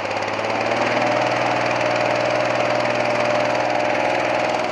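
Small gasoline engine of a hot air balloon inflator fan running steadily, just after starting, picking up slightly in the first second.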